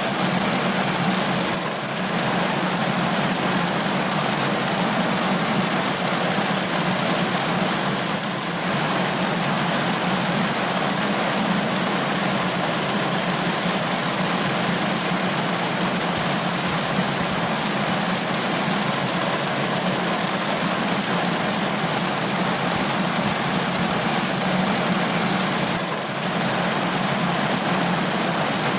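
Steady heavy rain: a continuous dense hiss of falling drops, dipping slightly for a moment about two seconds in, around eight seconds in and near the end.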